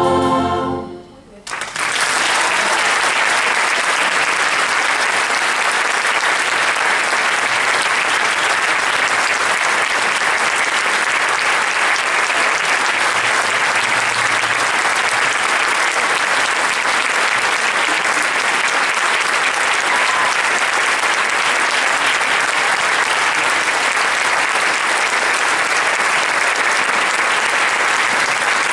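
Orchestra and choir hold a final chord that cuts off about a second in. After a brief hush, the audience breaks into steady, loud applause.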